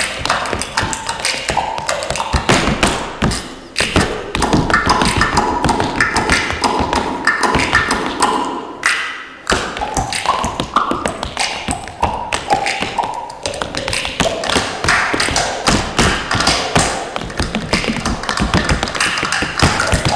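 Tap shoes striking a stage floor in fast, rhythmic tap-dance steps, with a brief break about nine seconds in, over accompanying music.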